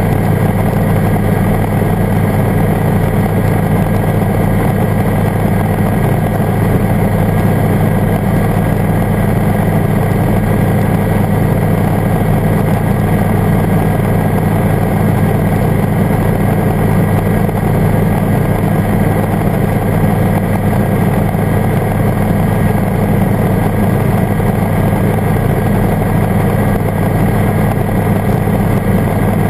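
Airbike ultralight's engine and propeller running steadily at cruise power in level flight.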